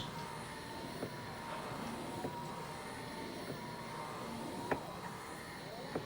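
4moms MamaRoo 4 infant seat's drive motor running with a steady whine, with scattered light ticks and one sharper click about three-quarters of the way through.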